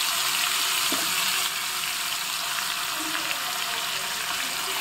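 Garlic cloves, dried red chillies and mustard seeds sizzling in hot oil in a steel frying pan: the tempering for lemon rice. A steady hiss that eases slightly about a second and a half in.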